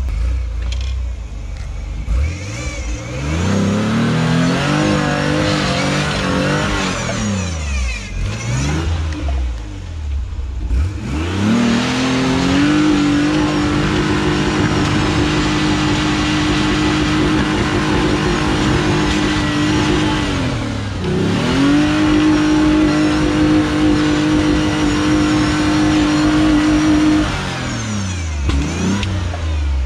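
Nissan-based rock crawler's engine revved hard three times under load as it is driven hard up a rock climb. Each time the pitch climbs and holds high for several seconds before dropping back; the middle push is the longest.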